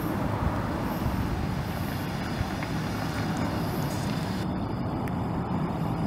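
The Chevrolet Silverado 1500's 5.3-litre V8 running steadily with a low, even rumble.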